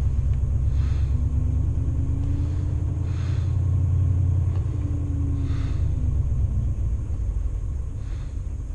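A 33-year-old car's engine running with a deep, steady rumble, its note rising and falling twice as the driver coaxes it along. Faint swishing sounds come about every two seconds.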